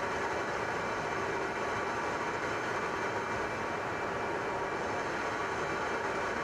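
Aircraft engines running steadily in flight: a constant drone with several faint steady whining tones over it, heard from aboard an aircraft flying alongside.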